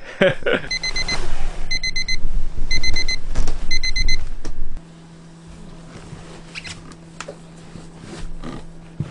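Wake-up alarm beeping in quick bursts of about four short high beeps, one burst roughly every second, three bursts in all, over loud rustling. The alarm and the rustling stop suddenly about halfway through, leaving a faint low hum and small clicks.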